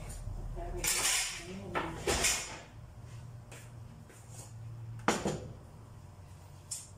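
Stainless steel cooking pots being handled and set down on a kitchen counter: a few separate metal knocks and clatters, the sharpest a pair about five seconds in.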